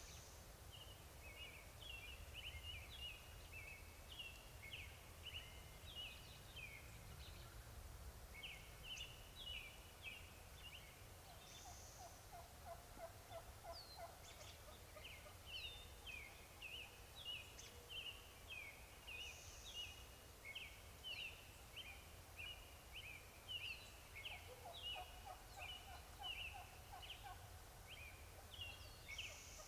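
Wild turkey gobbling faintly twice, about 12 seconds in and again about 25 seconds in, each gobble a quick rattling run of notes. Steady high bird chirping runs throughout.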